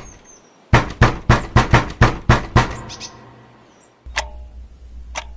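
A fast run of about eight heavy knocks, roughly four a second, each dying away quickly. About four seconds in, a low steady hum starts, with a single tick about once a second, like a clock.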